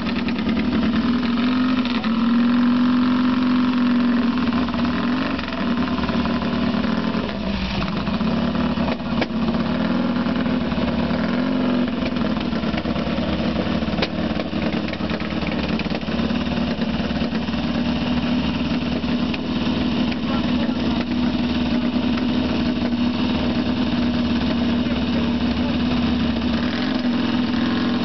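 Vintage HRD Vincent motorcycle engine idling steadily, with a couple of brief, slight rises in revs.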